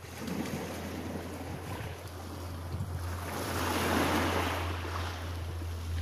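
Small sea waves breaking and washing up over a pebble beach, the wash swelling to its loudest about four seconds in, over a steady low rumble.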